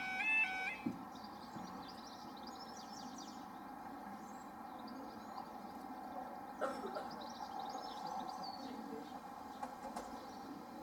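A level crossing alarm's two-tone warble cuts off about a second in. Small birds then chirp over a faint steady hum, with one short knock a little past halfway.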